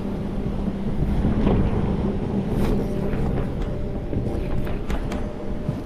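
Boat engine running steadily with a low hum, with wind buffeting the microphone. A few light clicks come in the second half.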